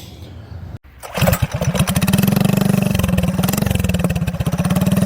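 Harley-Davidson motorcycle's V-twin engine running with a steady, even pulsing beat, coming in abruptly about a second in.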